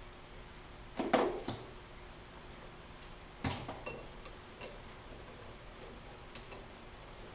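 Scattered clicks and knocks of metal parts and tools being handled, with a loud cluster about a second in and another about three and a half seconds in; a few of the strikes ring briefly.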